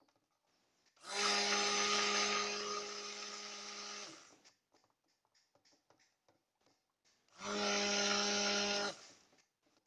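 Immersion stick blender running in two bursts, about three seconds and then about a second and a half, with a steady motor hum. It is mixing soap batter just after lye water has been added, being blended to trace.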